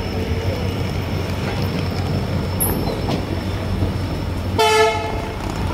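Passenger train running slowly with a steady low rumble of coaches on the rails. Near the end, one short train horn blast.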